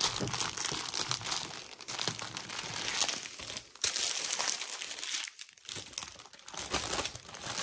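Small plastic bags of diamond-painting drills crinkling and rustling as they are handled and packed away, pausing briefly about five seconds in.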